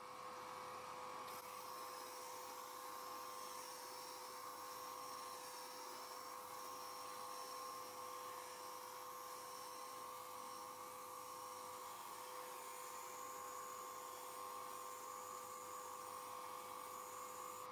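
Vertical belt sander running with a steady, even hum while a wooden part is sanded against the moving belt.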